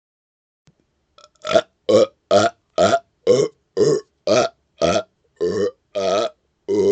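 A man burping in a rapid-fire string of short belches, about two a second, starting about a second and a half in; the last belch is drawn out longer.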